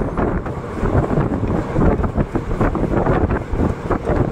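Express passenger train running at speed, its wheels rumbling on the rails, with wind rushing hard over the microphone.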